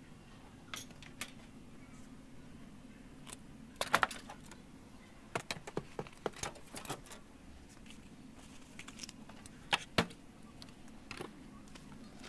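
Scattered clicks and clatters of stiff duct-tape props and rolled tape rods being handled and dropped on a workbench. The loudest knocks come about four seconds in and about ten seconds in, with a run of quick rattles in between.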